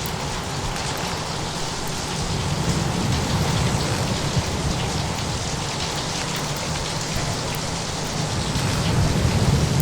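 Steady heavy rain, an even hiss, over a continuous low rumble from a storm soundscape. The rumble swells slightly near the end as thunder builds.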